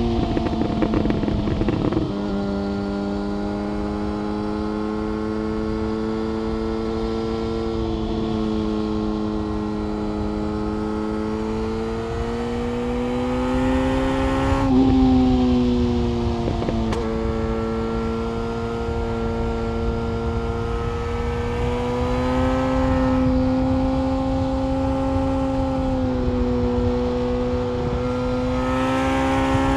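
Yamaha FZ1 Fazer's inline-four engine through an SC-Project exhaust, pulling steadily under way, with wind rushing past. Its pitch drops suddenly about two seconds in and again around fifteen seconds in, like upshifts. Between them it holds a fairly even note, and it revs up near the end.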